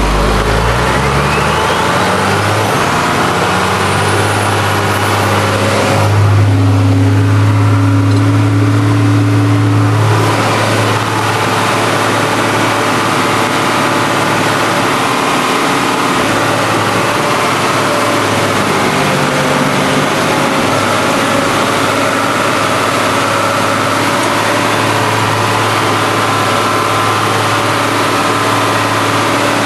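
Ford TW-30 tractor's six-cylinder diesel engine running steadily under load while pulling a harrow, heard from the cab. The engine speeds up over the first couple of seconds and is loudest from about six to ten seconds in.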